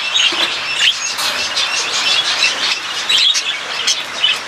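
Many budgerigars chirping and chattering continuously, a busy flock of overlapping short high calls.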